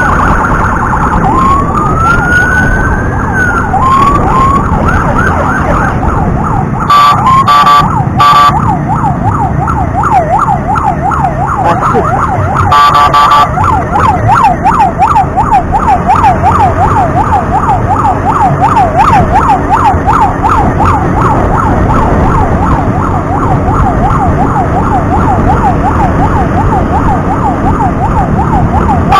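Emergency vehicle siren sounding in slow rising wails, then switching to a fast, even yelp from about eight seconds in, with short horn blasts twice, around seven and thirteen seconds. Engine and road noise runs underneath.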